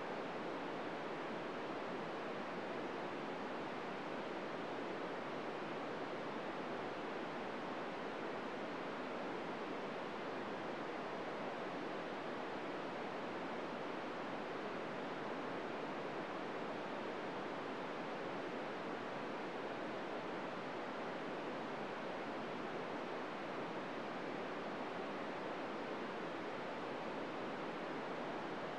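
Steady hiss of an FM radio receiver tuned to 145.800 MHz, with no SSTV tones in it: the receiver is putting out plain channel noise with no signal.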